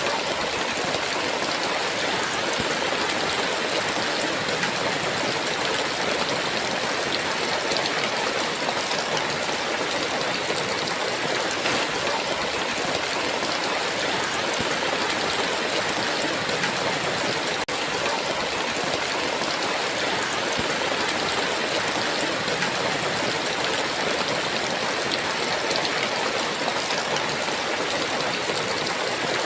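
Heavy rain falling steadily, a dense, even downpour hiss with no thunder.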